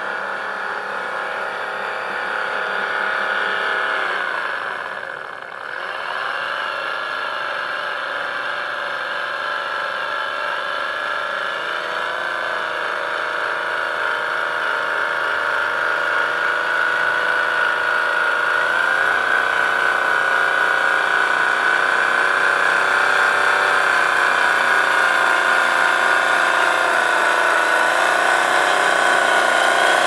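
Radio-controlled scale model Kenworth 850 logging truck driving under a heavy log load: a steady whine from its electric drive motor and gearbox, wavering slightly in pitch. The sound dips briefly about five seconds in, then grows gradually louder toward the end.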